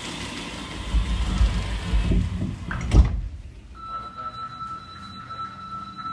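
Osaka Metro 1300 series subway car's sliding doors closing, ending in a sharp thud about three seconds in; moments later a steady high whine from the Toyo IGBT traction inverter starts and holds as the train is about to move off.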